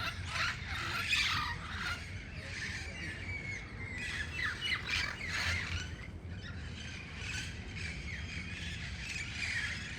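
A flock of parrots squawking: harsh, repeated calls that come in bunches, thickest in the first second or so and again around the middle.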